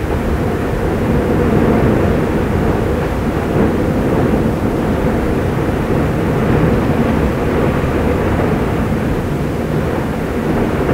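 Steady low rumble of an erupting volcano, with lava surging and fountaining in its crater.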